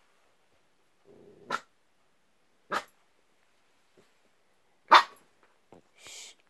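Puppy barking at her own reflection in a mirror: three short, sharp barks, the last the loudest, with a brief low growl just before the first.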